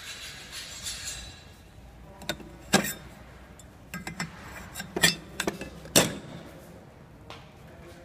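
Irregular sharp knocks and clinks of hard machine parts being handled and set down, the loudest about three, five and six seconds in, after a steady hiss in the first second or so.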